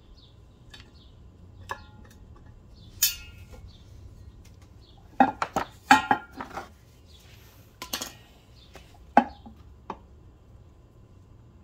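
Light metal clinks and clicks of a snap ring and snap-ring pliers being worked into the groove of a U-joint bearing cap on a drive shaft. Scattered single clinks, some ringing briefly, with a quick cluster about five to seven seconds in.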